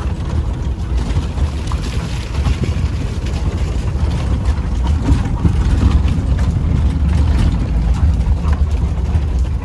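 A moving vehicle on a rough, bumpy road: a steady low engine and road rumble, with scattered small knocks and rattles.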